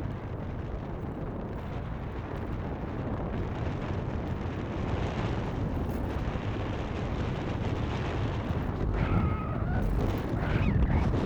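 Wind rushing and buffeting over the microphone as a bicycle rolls downhill, growing louder as it picks up speed. A faint, brief high tone shows about nine seconds in.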